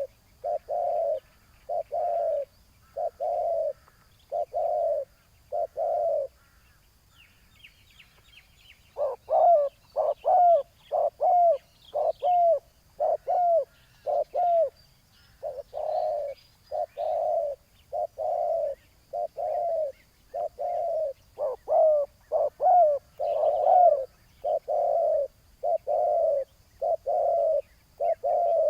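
Spotted doves cooing: a long string of short, evenly spaced coos, pausing about six seconds in. The cooing resumes with quicker notes that fall at their ends, then settles back into the steady series. Faint chirps of small birds come during the pause.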